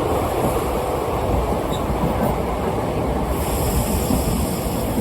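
Steady running noise of a moving passenger train heard from on board: a dense rumble of the wheels on the rails. A higher hiss joins about three seconds in.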